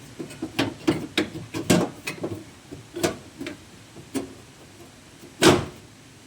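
Irregular knocks and light clatter of a sheet-metal repair panel being handled and offered up against the car body to test its fit, with one louder knock about five and a half seconds in.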